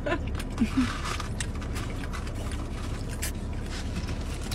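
Scattered small clicks and rustles of food and its wrapping being handled while eating, over a steady low hum in a car's cabin. A brief murmur comes near the start.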